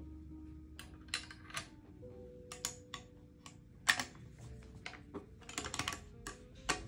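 Irregular small clicks and taps of a VZ 12/33 Mauser rifle's metal parts and wooden stock being handled and fitted together during reassembly, with one sharper knock about four seconds in.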